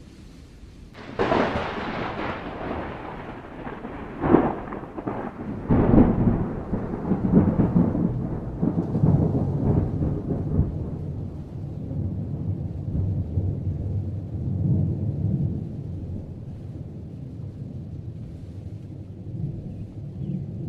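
Thunder following a lightning flash: a sudden crack about a second in, two more sharp cracks around four and six seconds in, then a long low rumble that rolls on and slowly dies down.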